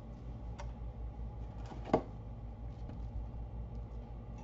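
Handling of product packaging at a desk: a few soft clicks and one sharp knock about two seconds in, over a faint steady low hum.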